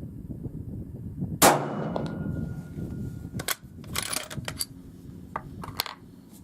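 A single shot from a 6.5 Creedmoor Ruger Precision Rifle firing subsonic ammunition, about a second and a half in, with a short fading ring after it. A few seconds later comes a run of smaller metallic clicks and clacks, the rifle's bolt being worked to eject the case and chamber the next round.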